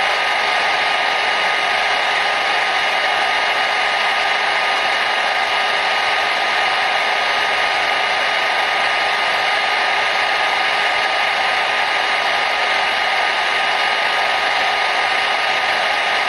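Hair dryer running continuously: an even rush of blown air with a faint steady whine on top, unchanging in level and pitch.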